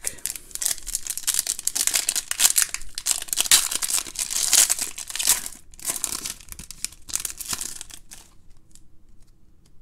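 Wrapper of a Topps Chrome Update Sapphire Edition trading-card pack crinkling as it is torn open and peeled off the cards, dying away about eight seconds in.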